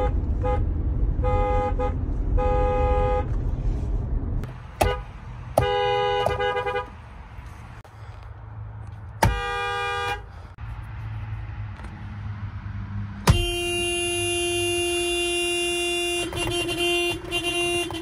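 Toyota car horns pressed from inside the cabin, several different cars in turn: a run of short honks and taps, many sounding as two notes together. Near the end comes one long steady honk of about three seconds, at a different pitch.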